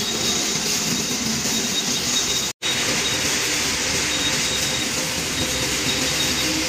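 Rebar wire drawing machine running steadily, a continuous mechanical rumble and whir with a faint high whine. The sound drops out for a split second about two and a half seconds in.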